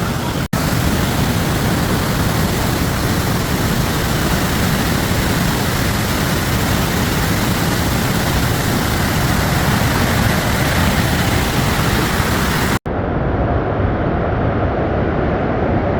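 Kaeng Yui waterfall in rainy-season flood: a loud, steady rush of falling water, broken by two momentary cuts.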